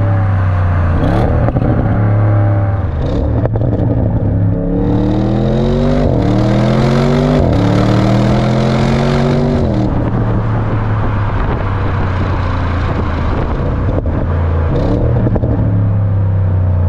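Exhaust of an Audi RS6 (C8, 600 hp) with its twin-turbo 4.0 V8, heard from beside the tailpipe while the car drives. It pulls hard through three upshifts in the middle, the pitch climbing and dropping at each shift, then settles into a steady cruise with a short rise in revs near the end.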